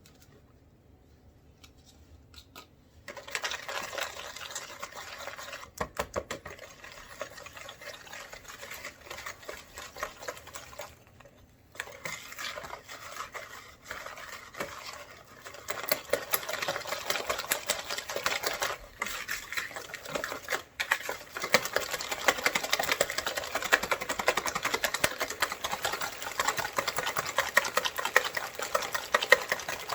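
Eggs and sugar being whisked in a bowl, the whisk clattering rapidly against the bowl. It starts about three seconds in, pauses briefly near the middle, and grows louder and faster for the second half.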